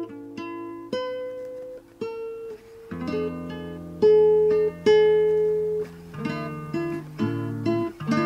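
Acoustic guitar instrumental: plucked notes and chords ringing out, growing fuller and louder about three seconds in.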